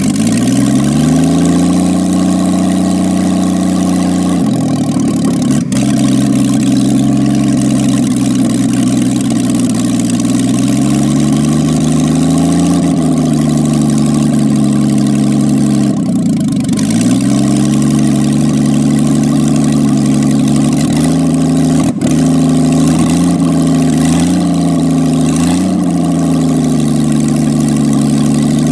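Homemade hot-rod speedster's engine running just after starting: it picks up revs in the first second, then idles with the revs rising and sagging a few times. Several quick throttle blips come near the end.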